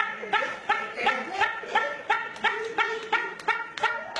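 A man laughing in a steady run of short, high-pitched bursts, about three a second.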